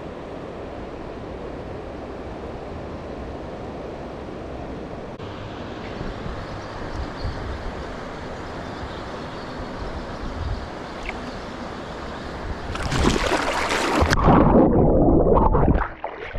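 Steady rush of river water. About thirteen seconds in, loud splashing close by lasts about three seconds, then stops abruptly.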